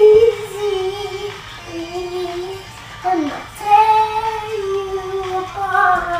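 A young girl singing a pop melody in long held notes.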